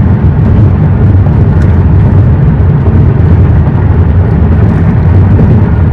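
Steady, loud low rumble of road and wind noise from a moving car.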